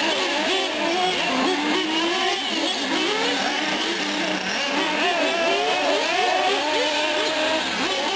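Several nitro-powered 1/8-scale R/C cars running laps on a dirt track, their small two-stroke glow engines whining and revving up and down over one another as they accelerate and brake.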